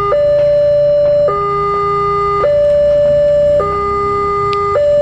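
Railway level-crossing warning alarm sounding as the crossing closes. It is a loud two-tone signal that switches back and forth between a higher and a lower note, each held a little over a second.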